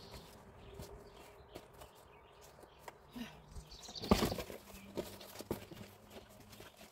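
Cardboard being handled: scattered taps and rustles as sheets are laid and boxes moved, with one loud cardboard scrape about four seconds in as a piece is pulled from a box close by.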